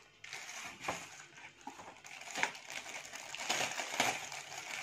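Plastic packaging crinkling and rustling as bags are handled, with irregular crackles and a few small clicks.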